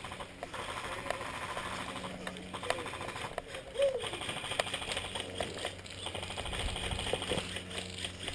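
Airsoft guns firing at a distance: a fast, steady clicking rattle, with faint voices under it.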